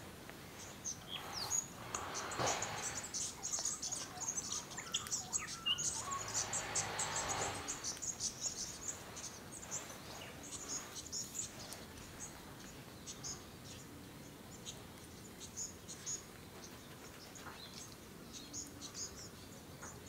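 Many quick, high-pitched bird chirps, thick in the first eight seconds and then sparser, with two short spells of soft rushing noise in that first stretch.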